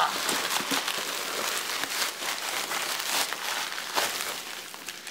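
Packing paper crinkling and rustling as it is pulled out of a shipping box, with many quick crackles and no pause.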